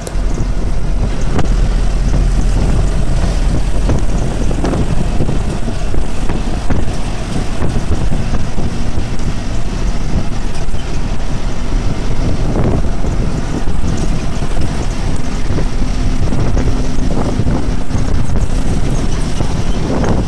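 Steady, loud rush of wind buffeting the microphone over the rumble of a moving vehicle, filmed from its window while it travels.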